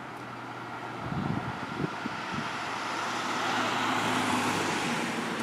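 A road vehicle passing by: a steady rush of engine and tyre noise that swells to its loudest about two-thirds of the way through, then eases. Wind buffets the microphone with a few low thumps.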